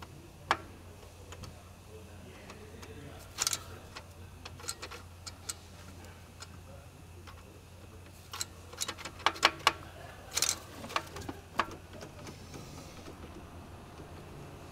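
Scattered sharp clicks and taps of small metal and plastic parts being handled and fitted on a car's shift linkage, with a quick run of clicks about nine to ten seconds in. A low steady hum runs underneath.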